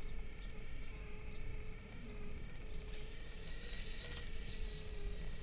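Electric motor and drivetrain of a 1/10 scale RC crawler whining steadily as it crawls over grass, with birds chirping in short high calls.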